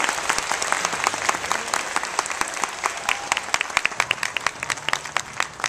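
Audience applauding with many people clapping, the claps thinning out toward the end.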